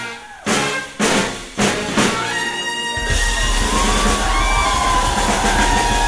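Brass band with drums playing four sharp accented ensemble hits about half a second apart, then from about three seconds in a loud held chord with the drums rolling underneath.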